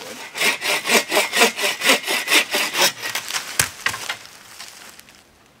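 Hand saw cutting through a dry branch in quick back-and-forth strokes, about five a second, for roughly three seconds; the wood cuts hard, like maple. Two sharp knocks follow a little after halfway.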